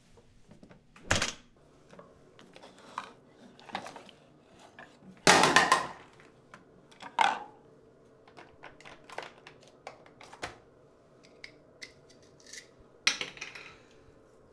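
Toiletries and other small objects knocked and set down on a bathroom counter: a few separate sharp knocks and clatters, the loudest and longest about five seconds in, with faint light taps between them.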